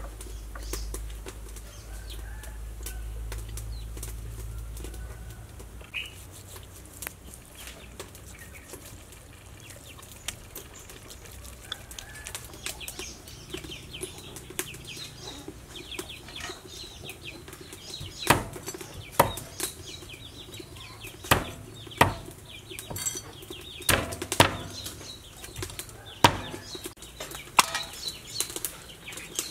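Hands rubbing and slapping seasoning into a whole raw chicken: quiet handling at first, then a string of sharp wet slaps at irregular intervals through the second half.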